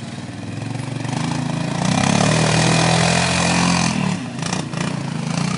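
ATV engine running and pulling harder, growing louder from about a second in, then easing off briefly just after four seconds before carrying on.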